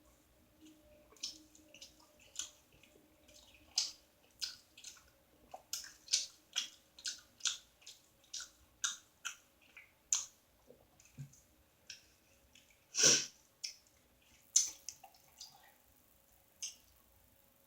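Close-miked wet chewing of a sandwich: a string of moist mouth clicks and lip smacks, one or two a second, with one louder smack about thirteen seconds in.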